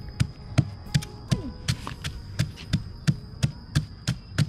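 Wooden pestle pounding in a clay mortar, a steady run of about three thuds a second, as a star gooseberry salad is pounded.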